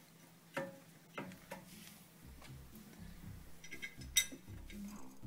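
Light metal clicks and clinks of a drilled brake rotor being seated on the hub and its Torx retaining screw being started by hand, with one sharper click near the end. Background music with a low beat comes in about two seconds in.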